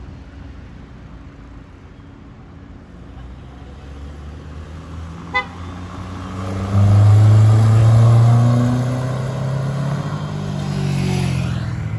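A short horn toot about five seconds in, then a Proton Savvy's 1.2-litre four-cylinder engine grows loud as the car accelerates past, its pitch climbing as it revs.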